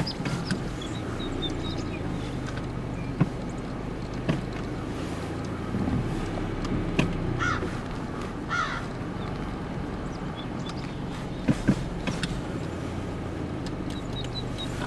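Steady low hum of an idling car engine, with a few sharp clicks and two short bird calls about a second apart near the middle.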